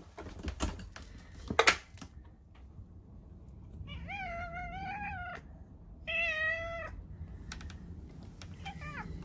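Calico cat meowing: one long meow, then a shorter one, then a brief falling mew near the end, begging for food. A sharp knock comes about a second and a half in.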